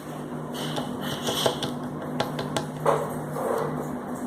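Light scattered clicks and taps with a brief rustle, from handling a plastic baking-soda container and its cap while filling the cap. A steady low hum runs underneath.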